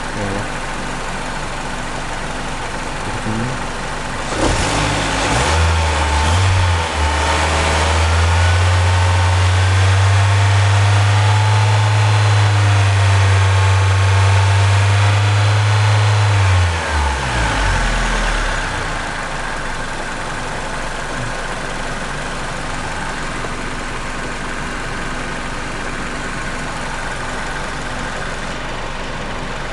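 Hyundai Sonata's engine idling with the air conditioning on. It is revved up about four seconds in, held at raised revs for roughly twelve seconds, then drops back to idle.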